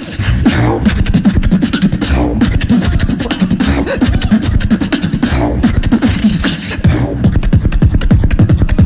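Live beatboxing into a handheld microphone, amplified through a stage PA: a fast, dense beatbox pattern of deep bass sounds under rapid, sharp snare- and hi-hat-like clicks.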